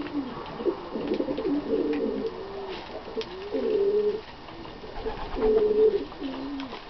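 A bird's low, rounded calls repeated about once a second, with a few faint sharp clicks from birds pecking at seed.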